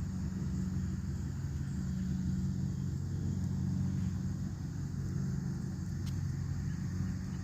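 Steady low engine hum of a motor vehicle running, even and unbroken.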